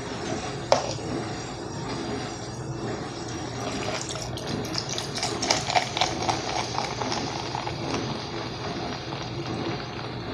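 A single sharp click about a second in, then a few seconds of crackling fizz from carbonated Pepsi.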